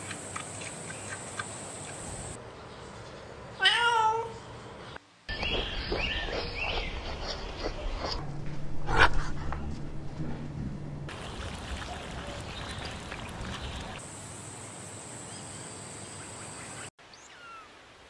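Animal calls across several quick cuts: a wavering cry that rises and falls about four seconds in, a few short pitched calls around six to seven seconds, a sharp click near nine seconds, and brief high chirps near the end.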